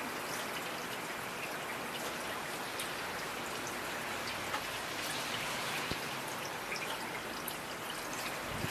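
Steady rain falling, with many individual drops ticking sharply against the patter.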